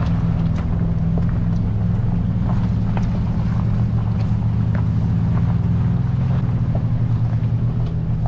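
Pickup truck engine running low and steady while climbing a gravel mountain trail, heard from inside the cab, with scattered faint clicks. The engine note shifts slightly about six seconds in.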